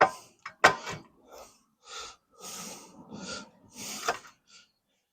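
Two sharp metal knocks, then several short rasps, as a through-bolt is knocked and worked out of the motor cradle bushings of a Coleman B200RSV mini bike.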